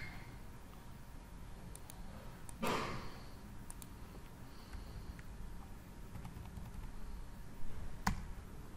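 A few scattered computer mouse clicks and keyboard key presses, with one louder short noise about three seconds in.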